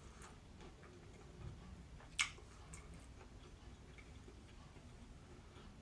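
A person chewing a sauced chicken wing: faint, irregular mouth clicks, with one sharper click about two seconds in.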